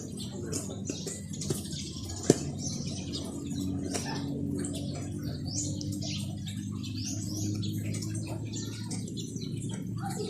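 Small birds chirping in quick, scattered calls over a steady low hum. A single sharp click comes about two seconds in.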